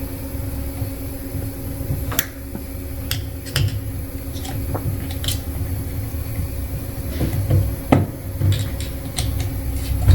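Scattered light clicks and taps of small parts and hand tools being handled while packing rings are worked into a pump cylinder, over a steady low hum. The sharpest click comes about eight seconds in.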